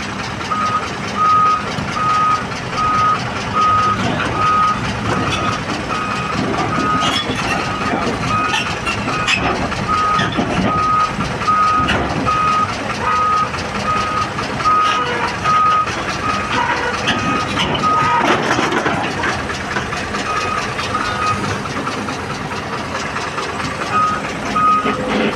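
A heavy machine's backup alarm beeps a single high tone at a steady, even rate, with two short breaks near the end, over diesel engine noise.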